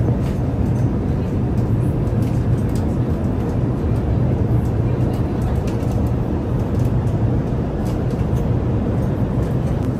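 Steady cabin noise of an Airbus A380 in flight: the drone of engines and airflow with a strong low hum, and faint light clicks on top.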